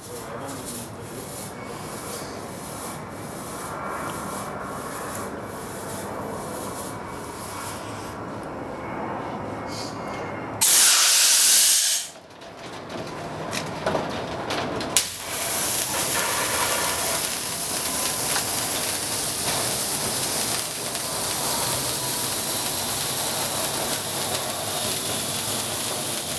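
A rumbling, rubbing noise with regular ticks, broken about eleven seconds in by a loud hissing blast from a fog machine. A few clicks follow, then a metal roller shutter door rattles steadily as it rolls up.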